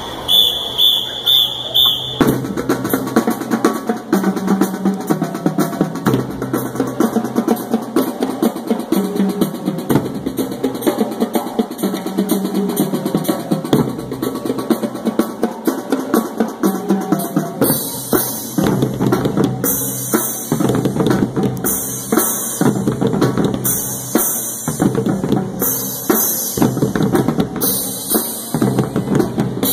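Marching drumline of snare drums and marching bass drums playing a cadence, starting about two seconds in after a few short high-pitched tones. From a little past halfway, crash cymbals join, clashing about once a second over the drumming.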